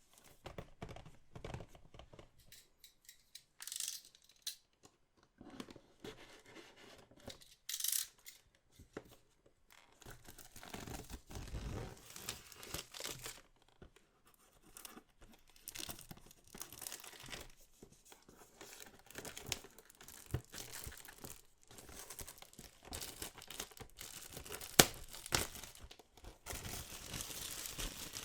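Wrapping on a sealed trading-card box being torn and peeled open, in irregular crinkly rips and rustles that grow busier partway through, with one sharp click near the end.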